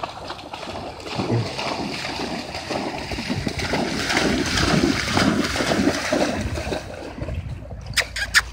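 An American Staffordshire terrier running through shallow water, splashing steadily, loudest around the middle. Two short, sharp sounds come near the end.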